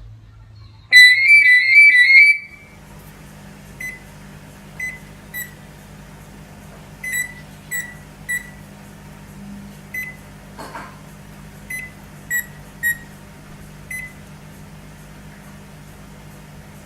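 A cockatiel whistles a loud, rapid warbling trill like a phone ringtone for about a second and a half. Then short single beeps come at irregular intervals over a steady low hum.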